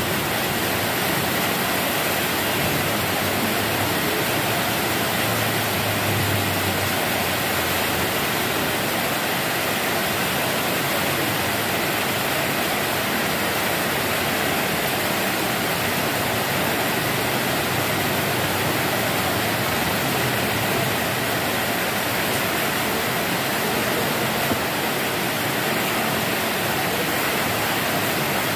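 Steady rain falling, an even hiss that does not change.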